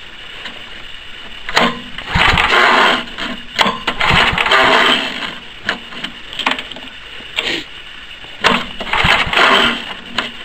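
Small snowblower engine being cranked by several pulls on its rebuilt recoil starter cord, each pull a short whirring burst of the engine turning over. It does not catch: the cold engine is not firing, which the owner takes to need starting fluid.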